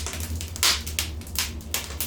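Wood fire crackling in a fireplace: irregular sharp pops and snaps, the loudest just over half a second in, over a steady low rumble of the flames.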